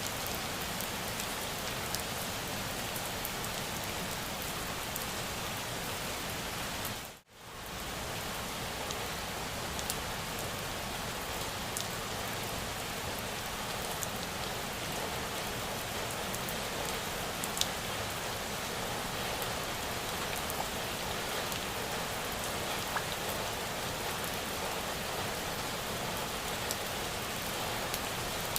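Steady rain: a dense, even hiss with scattered sharp drop ticks. About seven seconds in it cuts out for a split second and fades straight back.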